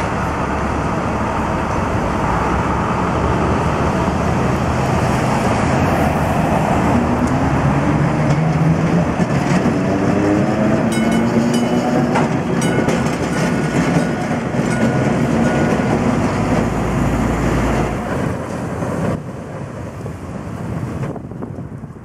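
Green 900-series St. Charles streetcar passing on its street track, its electric traction motors whining up and down in pitch over the rumble of its wheels on the rails, with street traffic. It gets quieter near the end.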